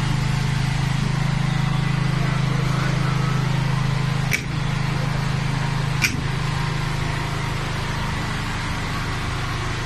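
Four-cylinder Perkins diesel engine of a 22 kVA generator running steadily inside its closed sound-proof canopy, giving an even low drone. Two short sharp clicks come about four and six seconds in.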